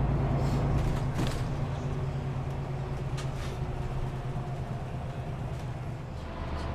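Bus engine running with a steady low hum and a few faint clicks.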